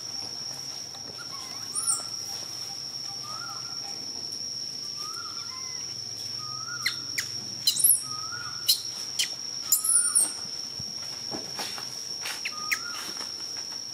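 Birds calling: one repeats a short, arched whistled note about once every second or so, with a few sharp high chirps about halfway through, over a steady high-pitched whine.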